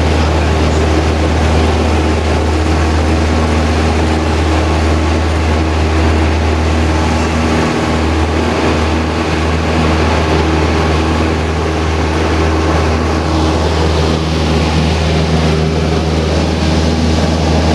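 Cessna 172 Skyhawk's piston engine and propeller at full takeoff power, heard from inside the cabin: a loud, steady drone through the takeoff roll and lift-off.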